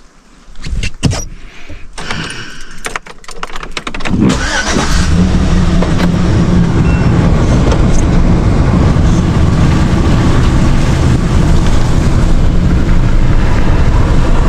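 Several clicks and knocks, then about four seconds in a vehicle's engine and road noise come on and run loud and steady.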